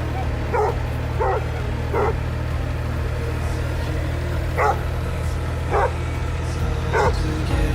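A dog barking in short, sharp yips, about six of them spread across a few seconds, over a steady low hum.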